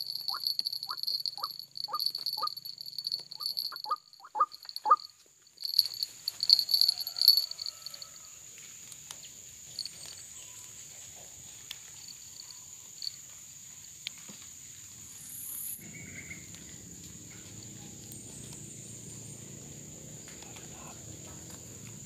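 A white-breasted waterhen caught in a snare, with short rising calls about twice a second over a pulsing high insect drone. After about six seconds come a few loud bursts of scuffling and flapping, then only a faint steady background.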